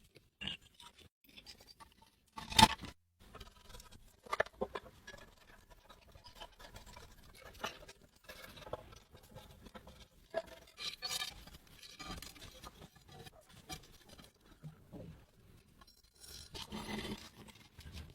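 Hand work on parts at a bench: irregular clicks, knocks and scrapes of tools and metal parts being handled, with one sharp knock about two and a half seconds in and a longer rasping scrape near the end.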